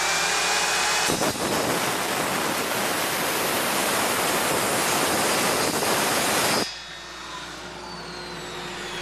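Sidewinder circular saw making a shallow test cut across a board. The blade is spinning free at the start and bites into the wood about a second in. The cut runs for about five seconds and stops abruptly, and the motor then whines down, falling in pitch.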